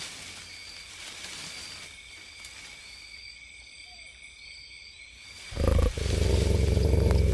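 A loud, deep growl for the white wolf starts suddenly about five and a half seconds in and keeps going. Before it there is only a faint night-forest background of insects chirring.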